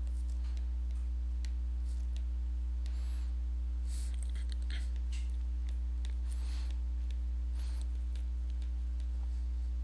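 Stylus tapping and scratching lightly on a tablet's glass screen while writing by hand, in short irregular strokes. Under it runs a steady low electrical hum.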